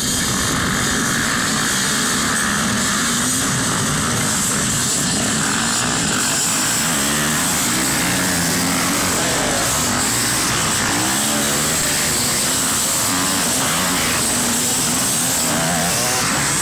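A pack of off-road motorcycles revving hard and accelerating away from a mass race start, many engines at once rising and falling in pitch. The engine noise comes in suddenly and loudly at the start and stays loud throughout.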